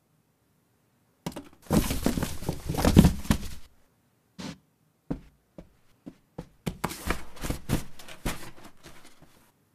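Cardboard box flaps being pulled shut from inside, with a burst of rustling and crinkling that starts about a second in and ends in a thunk. After that come scattered taps and scrapes on cardboard from inside the closed box.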